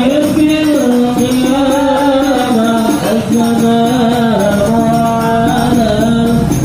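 Sholawat, Islamic devotional chanting, sung in long held notes that waver and bend in pitch.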